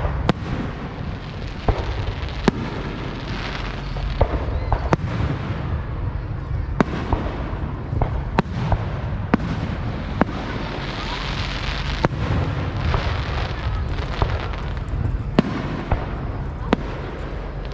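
Fireworks going off: many sharp bangs at irregular intervals, a few every second or two, over a steady low background rumble.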